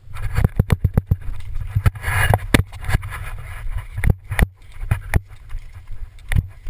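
Irregular knocks and bumps on a pole-mounted GoPro's housing, several a second, over a low handling rumble, as the camera is jostled and a boxer dog jumps at it. A short burst of rustling comes about two seconds in.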